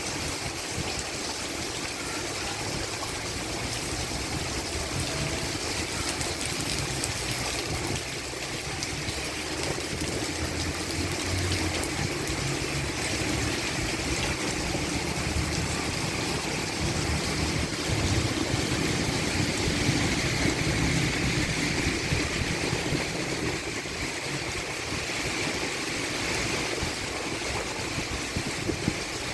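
Heavy rain pouring down, with water draining off the roof eaves in a steady rush. It grows a little louder about two-thirds of the way through.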